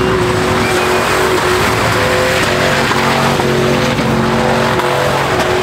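Car doing a burnout or donuts: the engine is held at high revs, its note stepping up and down a little, while the spinning tyres squeal on the pavement.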